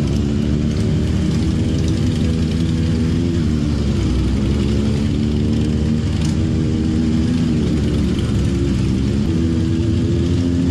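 A motorcycle engine running at low speed, its pitch rising and falling a little with the throttle.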